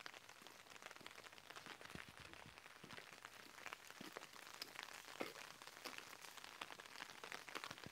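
Faint, dense pattering of light rain: many small irregular drop ticks.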